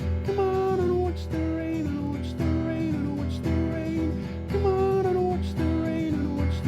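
Acoustic guitar strummed in a steady, repeating chord pattern, with held melody notes over the chords.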